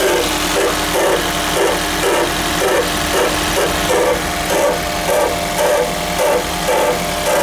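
Grinding noise from a 2001 first-generation Toyota Prius at cold startup: a steady hum with a rhythmic pulsing a little over twice a second. The owner notes that this noise also comes on without the engine actually starting.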